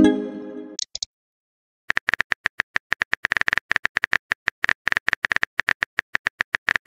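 Simulated phone-keyboard typing clicks, fast and irregular, starting about two seconds in. They follow a short message-sent chime that rings and fades out over the first second.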